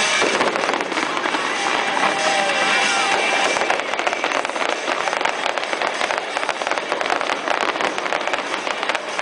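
Aerial fireworks shells bursting in a display, with a rapid, dense crackling of bangs and pops that grows sharper after about four seconds.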